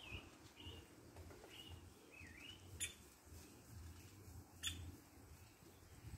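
Faint woodpecker sounds: a few short chirps that bend up and down in pitch in the first half, then two sharp, very short notes a little under two seconds apart.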